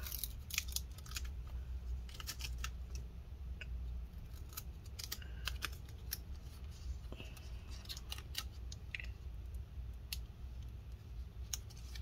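Faint, scattered small clicks and crinkles of black adhesive tape being handled: its backing peeled off and the strip pressed down over a ribbon cable on a metal laptop palm rest.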